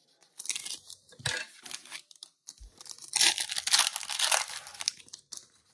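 Foil wrapper of a 2022 Panini Mosaic football card pack crinkling in the hands, then torn open. Short crinkles come in the first second and a half, and the loudest stretch of tearing and crinkling runs from about three seconds in to just past five.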